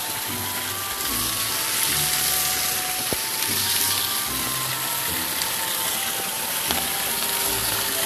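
Background music, a simple melody of short held notes, over a steady hiss of rushing water, with a couple of sharp clicks about three and seven seconds in.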